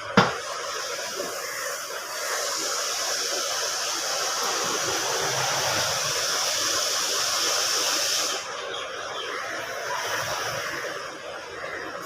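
A single sharp click at the start, then a steady blowing hiss that comes in about two seconds in and stops about two-thirds of the way through.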